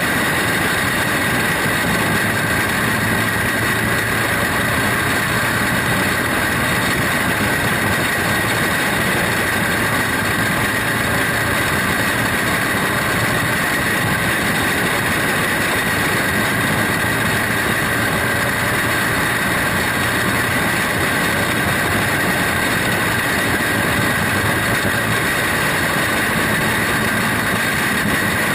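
Small kart engine running hard at a steady, high pitch under racing load, heard onboard with the rush of wind and track noise, unbroken throughout.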